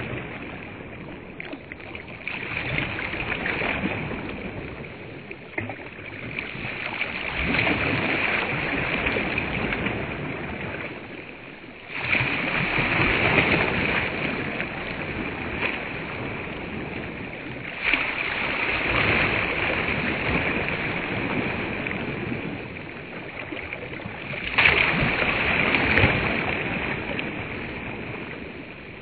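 Small waves breaking and washing up on a sandy shore, a surge every five or six seconds.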